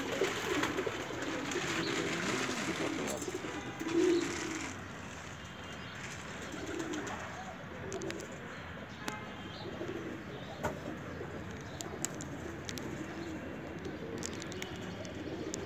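Birds cooing: low, repeated coos through the whole stretch, one louder coo about four seconds in, over a steady hiss that eases after about five seconds.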